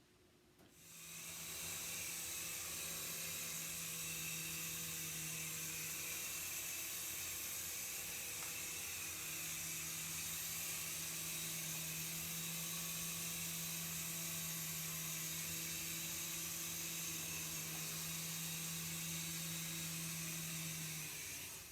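Remote control helicopter's small electric motor and rotor, a steady high whir with a constant hum beneath it. It spins up about a second in, runs evenly, and winds down just before the end.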